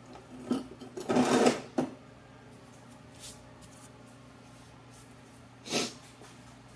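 Short clatter and scrape of metal tool parts being handled and marked on a bench: a louder scrape about a second in and another clack near the end, over a low steady hum.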